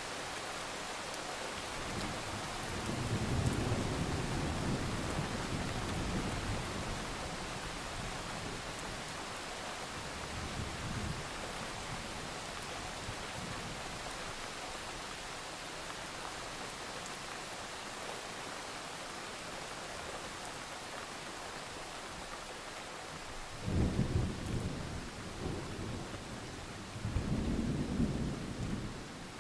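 Steady rain hissing, with thunder rumbling over it: one long rumble a few seconds in, a weaker one around ten seconds in, and two stronger, sharper claps near the end.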